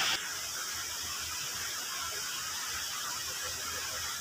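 Quiet outdoor background ambience: a steady, faint hiss with no distinct event, after a louder hiss cuts off just after the start.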